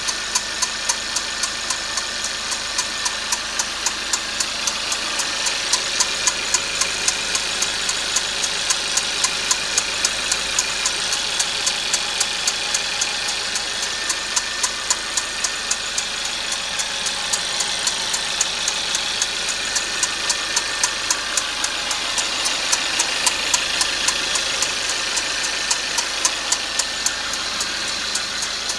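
Mercedes-Benz W204 C-Class engine idling with a steady, sharp ticking at about three ticks a second. This is an abnormal noise that comes only from a cold engine and goes away once it is warm.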